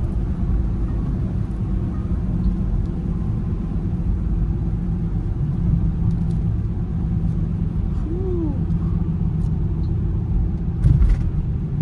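Range Rover Sport SVR's supercharged V8 and road noise, heard from inside the cabin while driving: a steady low rumble. A single thump near the end.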